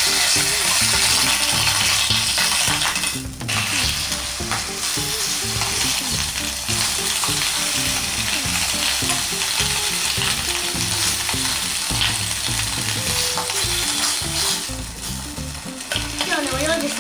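Sliced bacon sizzling steadily in oil in an aluminium camping frying pan.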